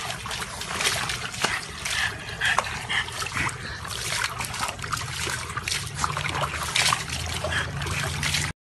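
Water splashing and sloshing in a plastic tub as a dog thrashes about in it, spilling water over the rim onto the ground.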